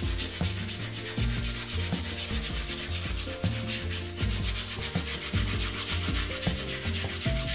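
100-grit sandpaper on a sanding block rubbed back and forth on the engine block's water pump mounting face, scraping off old gasket and silicone residue in rapid, even strokes. Low tones that shift in pitch sit underneath.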